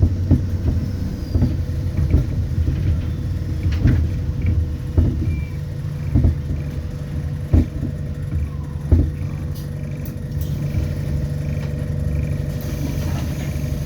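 ADL Enviro400 Hybrid double-decker bus heard from inside while it moves: a steady low drivetrain hum with a faint steady whine over it. Scattered knocks and rattles from the bus body come in the first part.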